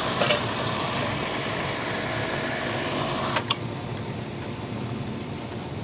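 Newly installed single-speed pool pump motor running with a steady hum. Two sharp clicks come through, about a third of a second in and again around three and a half seconds in.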